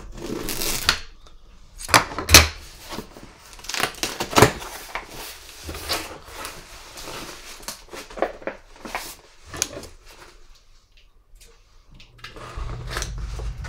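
Cardboard shipping box being cut and pulled open, a run of scraping, rustling and sharp cardboard knocks. The loudest are about two and four seconds in, and it dies away to quiet for the last few seconds.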